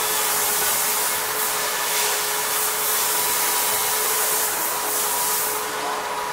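DABA 320-B automatic folding and slitting machine running, a steady high whirring noise with a faint steady hum underneath. It eases off slightly near the end.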